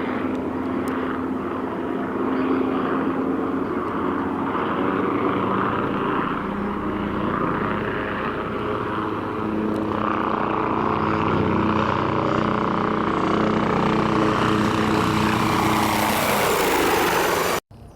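Agusta Caweel CW-86 aircraft engine sound effect: a steady propeller-engine drone whose pitch shifts slightly about halfway through. Near the end a rising hiss builds over it, then the sound cuts off abruptly.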